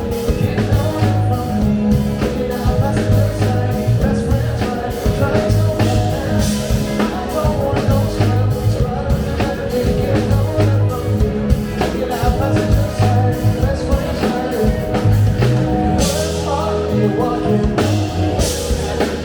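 A live funk and soul show band playing a song with a singer, drum kit, bass and guitar, with a steady beat.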